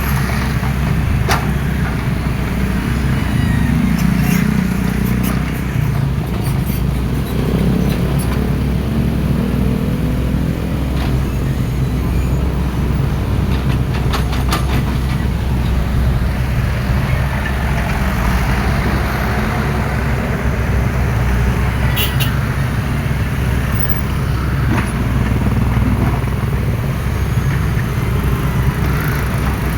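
Hydraulic excavator diesel engines running under load while digging, the engine note rising and falling as the machines work, with a few sharp metallic clanks.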